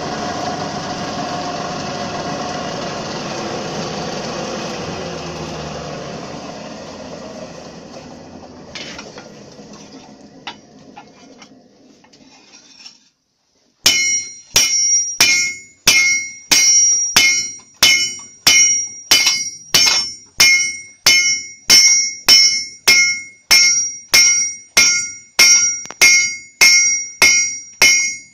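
A steady rush of air from the forge fire's blower fades away over several seconds, its pitch sinking. After a short gap, a hand hammer strikes a red-hot steel ploughshare on an anvil about twice a second, each blow ringing bright and metallic.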